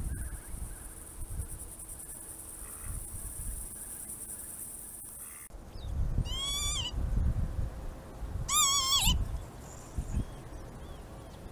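Northern lapwing giving two loud, slurred, wavering calls about two seconds apart in the second half, over low wind rumble on the microphone.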